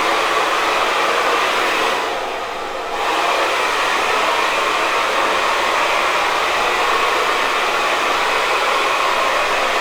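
Hair dryer blowing steadily, its rush dropping away for about a second around two seconds in before coming back at full strength.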